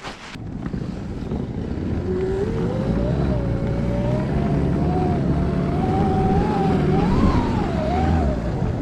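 Electric snowbike with a track snow kit riding off: the electric motor's whine rises about two seconds in and wavers up and down with the throttle, over a steady low rumble.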